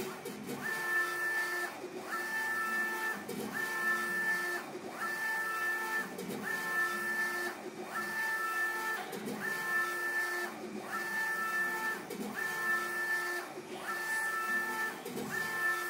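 Apache UV flatbed inkjet printer's print carriage shuttling back and forth across the bed. Each pass is a steady two-tone motor whine lasting about a second, with a short break at each reversal, repeating about every one and a half seconds.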